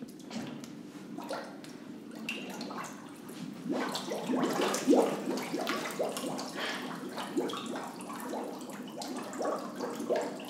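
Water sloshing and splashing in a hydrostatic weighing tank as a man lowers himself under, with gurgling bubbles breaking the surface as he breathes out all his air. The splashing is busiest about four to five seconds in.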